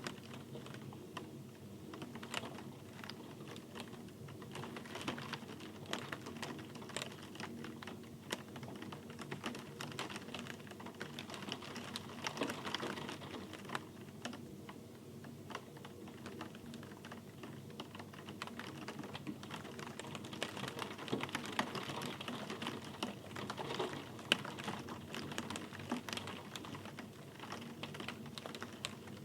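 Steady rain with many separate drops tapping irregularly on a hard surface.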